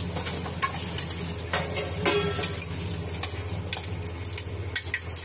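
Steel mixer-grinder jar knocked and scraped against a steel plate as ground coriander paste is emptied out: irregular metal clinks and scrapes over a steady low hum.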